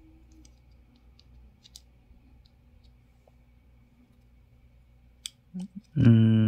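Faint, scattered clicks of plastic model-kit parts being handled and fitted together, with a few sharper clicks near the end. Then a person's voice starts on a loud, held low note.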